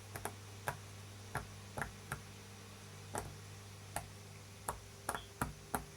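Silicone pop-it fidget toy bubbles being pressed one at a time: small irregular pops, about two a second. A steady hum from an electric fan runs underneath.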